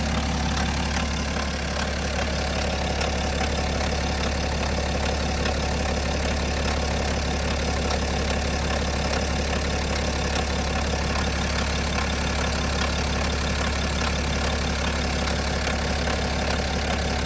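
BMW N57 straight-six diesel engine idling steadily, the noise its owner suspects may come from the timing chain.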